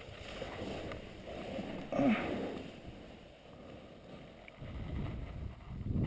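Handling noise from a handheld camera being moved around inside a Jeep Wrangler's cabin: uneven rustling and rubbing, with a short, louder pitched sound about two seconds in and another swell near the end.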